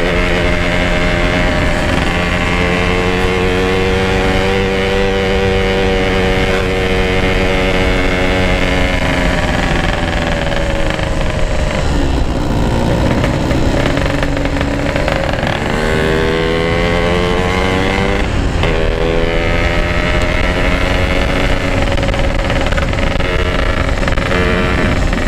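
Yamaha RX-King's two-stroke single-cylinder engine, fitted with a modified stock exhaust, running at steady riding revs. About halfway through the revs drop off, then climb over a few seconds as it pulls again, and it settles back to a steady pitch.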